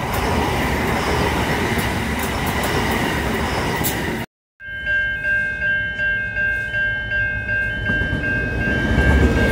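An Adelaide Metro electric multiple-unit train passing with a steady rush of wheel and running noise. After a short break about four seconds in, a steady high electronic tone with stepping higher tones pulses about twice a second over a low rumble that grows as an SCT freight locomotive approaches.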